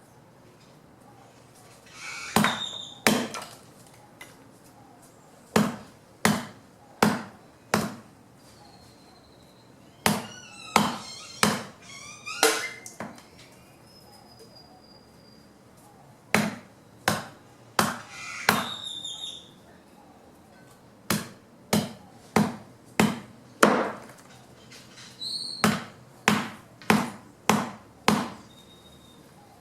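Fallen branches being chopped by hand into wood chips, a blade striking the wood in runs of several sharp chops about a second apart, with short pauses between runs.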